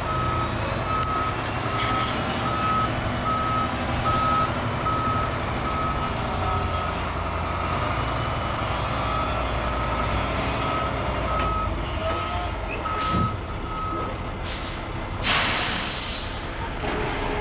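Heavy diesel machine running, with its backup alarm beeping steadily at a single pitch, then going quiet. Near the end comes a loud burst of hissing, like air or hydraulic release.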